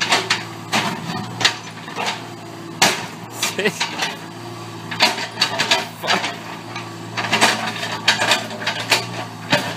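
Volvo EC25 mini excavator's diesel engine running steadily, with repeated irregular metallic clanks and knocks as the bucket and arm work against a large lump of concrete.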